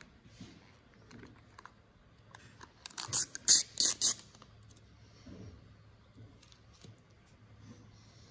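The peel-off lid being torn back from a small plastic dipping-sauce cup: a quick run of loud crackling rips about three seconds in, lasting about a second, with light clicks of plastic cups being handled around it.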